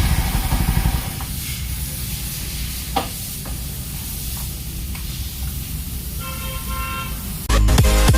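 Yezdi Scrambler's single-cylinder engine settling from a throttle blip back to a steady idle, with a few light clicks over it. A faint horn sounds for about a second near the end, then electronic music starts loudly.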